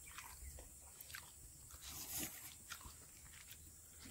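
Faint sounds of a person eating rice by hand: scattered soft clicks and chewing.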